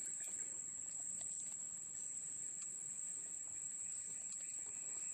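Insects, crickets or similar, keeping up a steady high-pitched drone, with no break.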